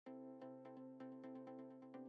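Quiet background music: a held chord over a steady bass note, with light clicking beats several times a second.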